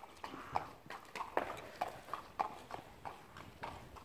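Hooves of a two-year-old Thoroughbred filly, a Garswood filly, clip-clopping on tarmac at a walk, about three hoofbeats a second.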